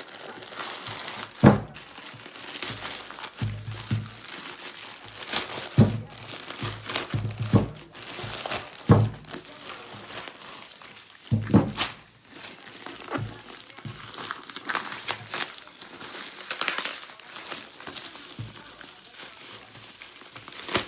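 Packaging crinkling and rustling as a sneaker box is unpacked by hand, with irregular thunks from the box and shoes being handled.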